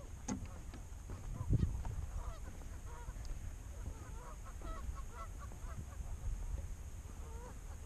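A flock of waterbirds calling in many short, overlapping calls. Wind rumbles on the microphone, and a low thump comes about a second and a half in.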